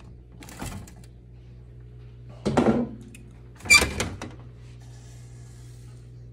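Chrome car trim pieces being moved about inside a cardboard box: a few knocks and rattles of metal against metal and cardboard, the loudest two about two and a half and four seconds in, over a steady low hum.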